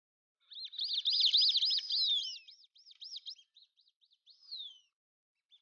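Duck whistle call blown in a fast run of high, arching whistled notes, then slower, fainter notes and a falling whistle near the end.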